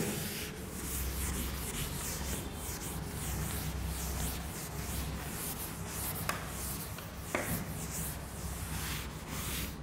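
Handwriting strokes, a steady series of scratchy rubbing strokes as words are written out, with two light taps about six and seven seconds in.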